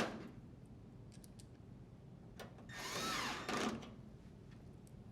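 Drill driver running a screw into the dryer's sheet-metal panel for under a second, its motor pitch rising then dropping, followed by a brief second burst as the screw is snugged; light clicks of handling around it.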